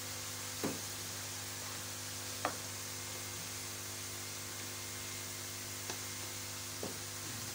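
Steady electrical hum and hiss, with a few faint short taps as a knife presses cut lines into setting sesame-jaggery brittle in an aluminium tin.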